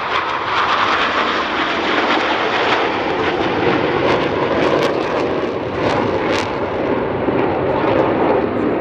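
A formation of eight KAI T-50 Golden Eagle jets flying by. Their single F404 turbofan engines make a steady, loud jet noise.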